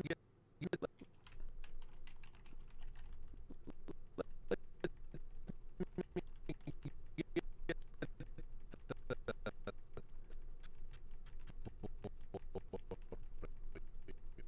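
Computer keyboard keys being tapped in quick succession, several clicks a second, starting about a second in.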